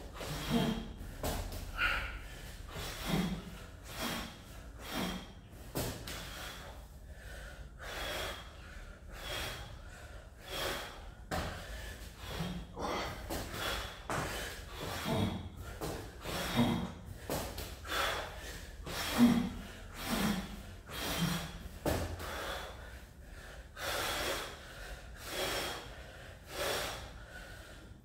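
A man breathing hard while doing burpees, with loud, forceful breaths and gasps about once a second.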